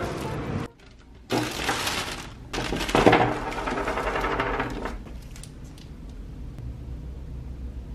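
Clear plastic sleeves and packaging crinkling and crackling as stationery is handled, in two stretches with the loudest about three seconds in. The end of background music is heard just before.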